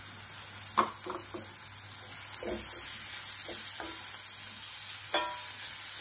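Chopped tomatoes and onions sizzling in oil in a steel kadai while a steel ladle stirs them, scraping and clinking against the pan several times. The sharpest clinks come about a second in and about five seconds in.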